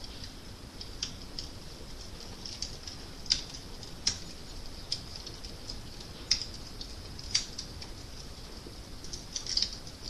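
Wood fire crackling: a steady hiss with sharp, irregular pops, a few louder snaps and a quick run of pops near the end.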